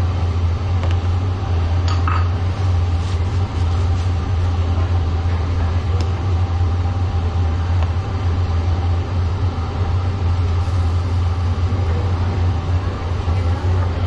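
Steady low roar of a gas burner under a large pot of boiling bakso broth, unbroken throughout, with a few faint clinks of a metal ladle against the pot.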